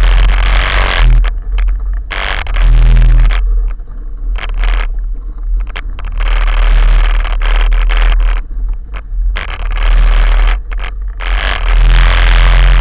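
Quad bike (ATV) engine running at low speed, a steady low drone, with a harsh rattling hiss on the rack-mounted camera's microphone that cuts in and out several times.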